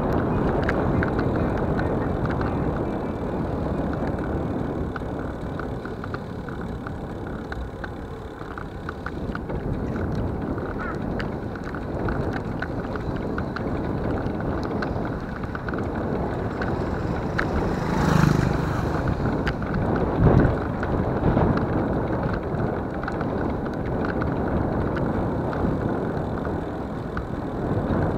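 Wind and road noise of a camera riding on a vehicle along a paved road: a steady rush with light rattles throughout, and two louder bumps about 18 and 20 seconds in.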